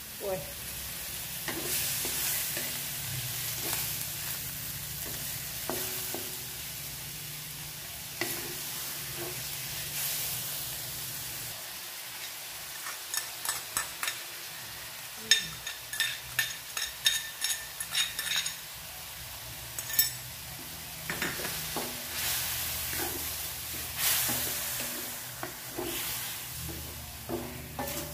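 Catfish pieces in curry paste frying with a steady sizzle in a stainless steel wok, stirred with a wooden spatula in repeated scraping strokes. Around the middle comes a run of quick, ringing clinks of a metal spoon against a ceramic bowl as something is spooned into the wok, then the stirring resumes.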